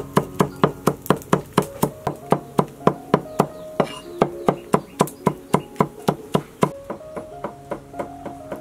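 Heavy cleaver chopping on a thick wooden chopping board in a fast, even rhythm of about four strokes a second, growing softer after about seven seconds. Background music plays under the chopping.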